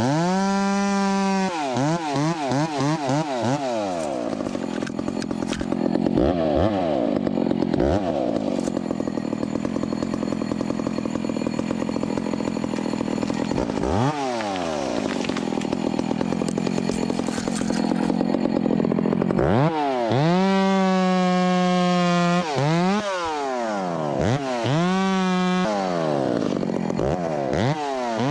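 Ported Echo 25 t small two-stroke chainsaw, throttle blipped repeatedly so the pitch sweeps up and down, held at full revs a few times, with a long stretch in the middle where it runs lower and rougher, as when it is under load in a cut.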